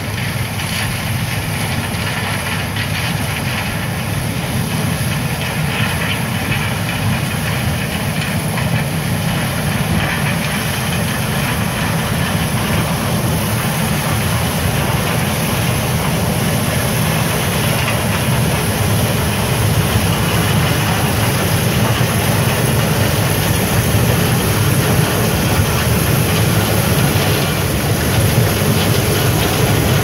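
New Holland TR88 twin-rotor combine running under load while harvesting corn: a steady low engine and threshing drone with some rattle, growing gradually louder as the machine draws near.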